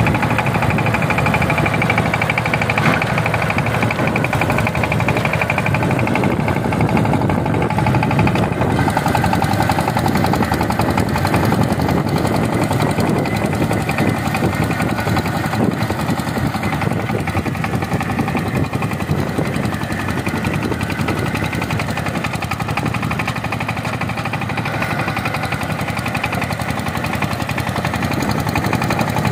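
Sifang two-wheel power tiller's single-cylinder diesel engine running steadily under load, a rapid, even chugging, as it pulls the tiller through wet paddy mud.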